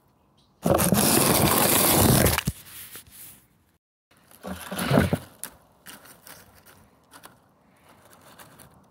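Dry grass and twigs rustling and scraping close to the microphone as toys and a stick are moved through them by hand. A loud burst lasts nearly two seconds, then after a short cut comes a shorter burst, followed by a few small clicks.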